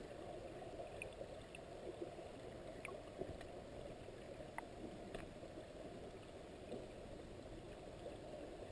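Muffled underwater noise picked up by a submerged camera in murky water: a faint, steady low rushing with a few scattered faint clicks.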